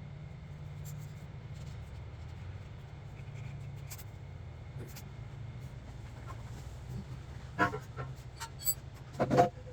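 A steady low hum, then several sharp metallic clinks and knocks in the last few seconds, some briefly ringing, from tools and metal exhaust parts being handled.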